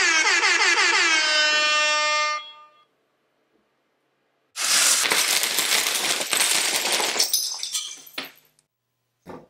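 A held tone that slides down in pitch and then holds for about two seconds. A couple of seconds later comes a loud clatter of many plastic Lego bricks scattering and tumbling onto a hard surface, lasting about four seconds and thinning out at the end.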